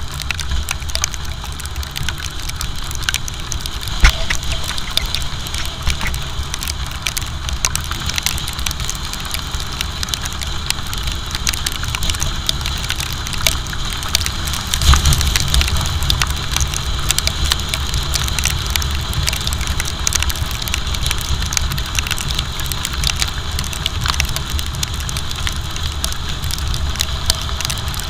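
Wind buffeting the microphone of a camera on a motorcycle riding fast through rain, with tyre hiss off the wet road and many small ticks of raindrops hitting the camera. A sharp knock about four seconds in, and a louder swell of noise about fifteen seconds in as an oncoming truck passes close.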